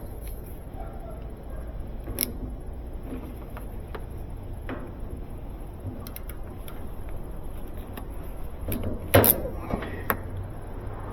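Scattered light clicks and knocks of parts and tools being handled, with the loudest knock about nine seconds in, over a low steady hum.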